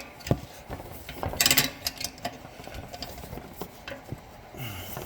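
Metal clinking, knocking and scraping as steel exhaust springs and the muffler of an ATV are worked into place by hand. There is a sharp knock about a third of a second in and a loud rattling scrape around a second and a half in.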